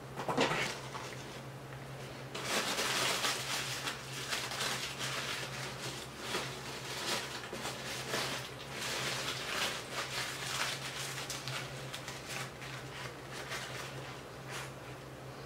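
Close-miked eating of a fast-food burger meal: irregular chewing and food-handling sounds, busiest a few seconds in, over a steady low electrical hum.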